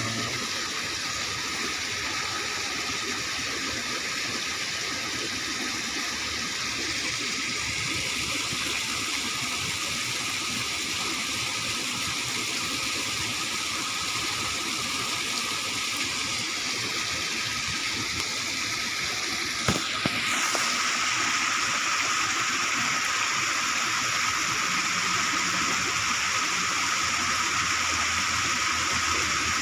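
Steady rush of water flowing out of a concrete culvert, with a single knock about two-thirds of the way through, after which the rush is a little louder.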